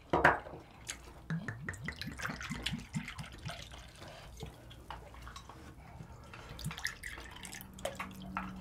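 Soju poured from a glass bottle into small shot glasses, gurgling and trickling in two pours, after a sharp click right at the start.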